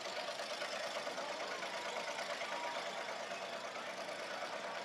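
Demolition derby car engines idling steadily, a continuous rapid rumble with no revving.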